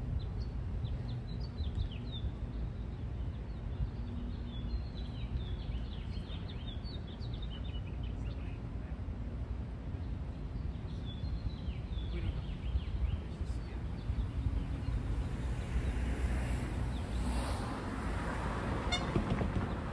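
Small birds chirping over a steady low outdoor rumble. In the last few seconds a car drives past and its noise swells.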